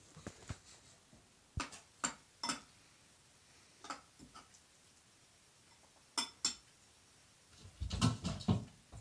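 Live fish thrashing in an enamel basin, knocking and slapping against it in short bursts: three knocks around two seconds in, a couple around four and six seconds, and a quick flurry near the end.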